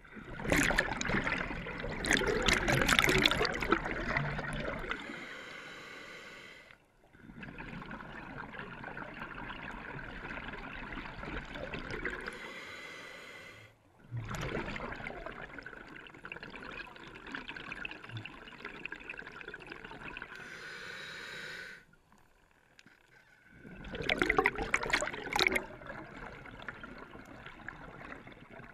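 Scuba diver breathing underwater through a regulator: crackly bursts of exhaled bubbles near the start and again near the end, with long stretches of steadier hiss in between, broken by short pauses between breaths.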